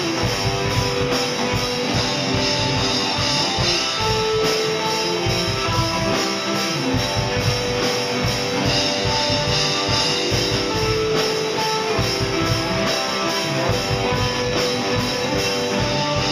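Live rock band playing an instrumental passage: electric guitars holding notes over a busy drum kit, steady and loud.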